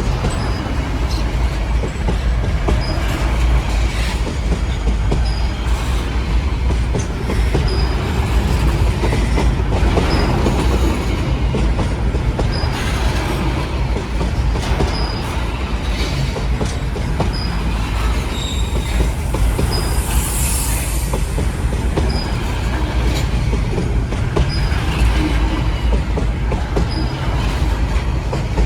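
Train rolling past at a steady pace: a continuous low rumble with regular wheel clacks and short high wheel squeaks about every two seconds, and a brief high hiss about two-thirds of the way through.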